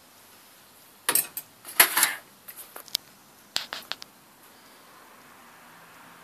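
Metallic clattering and sharp clicks from objects being handled on a workbench: a burst of clatter about a second in, then a few sharper clicks just before the middle.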